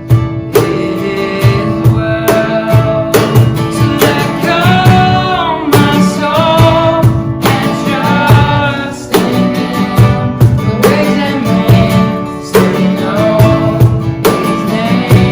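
Worship band music: strummed acoustic guitar with a sung melody over it.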